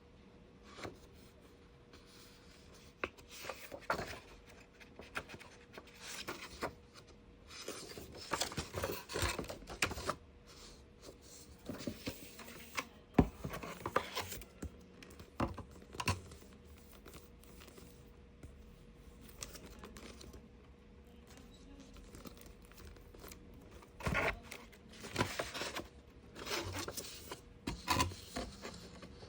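Hands working on a miniature craft kit: irregular scraping, rustling and small clicks as small parts and sheets are handled and worked, with a sharper click about a third of the way in.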